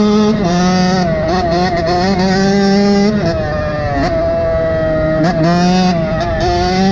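KTM SX125's single-cylinder two-stroke engine running under way, its pitch holding steady for stretches and several times rising or dipping and briefly breaking as the throttle is opened and closed.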